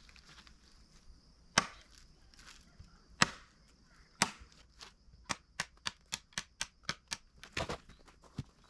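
Dry firewood branches cracking and knocking as they are broken up: a few sharp, spaced cracks, then a quicker run of lighter knocks, about three a second, from about five seconds in.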